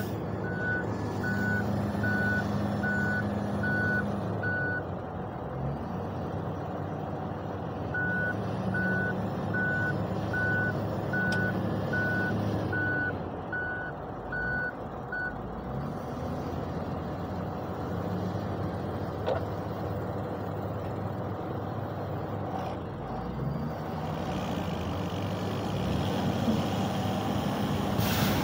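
Diesel engines of heavy vehicles running, with a reversing alarm beeping at one steady pitch about one and a half times a second, in two spells that stop about halfway through.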